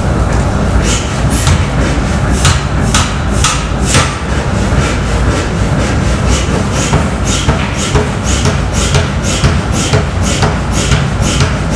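A 500 kg air power hammer strikes a red-hot forging held in tongs on its anvil, in a steady run of blows about two a second starting about a second in. The running hammer rumbles constantly underneath.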